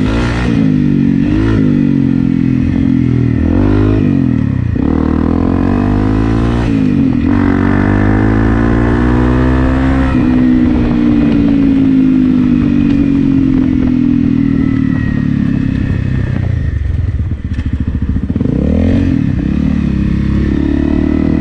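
Honda CRF250 Rally's single-cylinder engine, fitted with an FMF PowerCore 4 exhaust, revving up and shifting through the gears while riding, its pitch climbing and dropping several times. It then holds a steady pace for several seconds before easing off and picking up again near the end.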